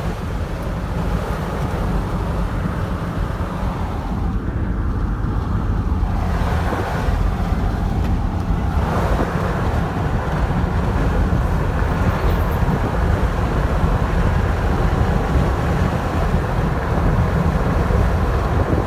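Road and engine noise heard inside a moving car: a steady low rumble with no distinct events.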